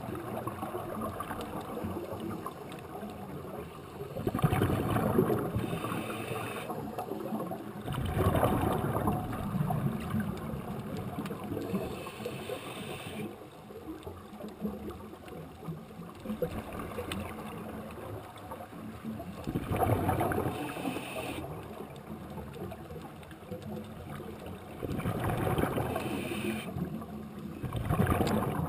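Scuba regulator exhalations underwater: bubbles rushing and gurgling out in four bursts several seconds apart, over a steady underwater hiss.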